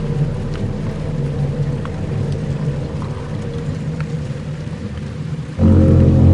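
Dark ambient music: a low sustained drone with faint scattered ticks over it. Near the end a louder, deeper chord comes in suddenly.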